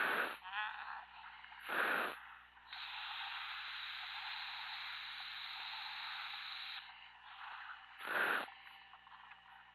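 A diver's breathing heard over the diving radio: three short rushes of air through the breathing gear, about a second in, two seconds in and eight seconds in, with a steady hiss lasting about four seconds between them.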